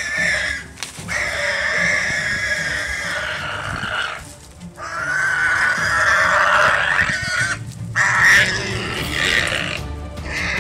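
A warthog squealing in distress while held by lions: three long, drawn-out screams, each a few seconds, with short breaks between.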